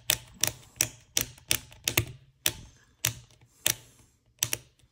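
Illuminated push-button switches from a Tektronix 7904 oscilloscope being pressed repeatedly to work WD-40 into their sticky mechanism: a steady run of sharp clicks, about two or three a second, spacing out a little about halfway through.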